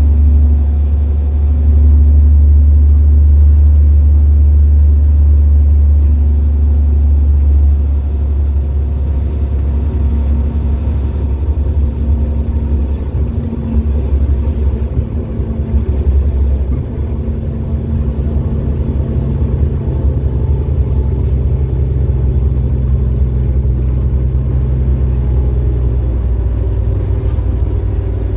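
Inside a Caterpillar-engined Denning Phoenix low-floor bus under way: a steady deep diesel engine and road rumble, a little louder for the first several seconds and easing back about eight seconds in.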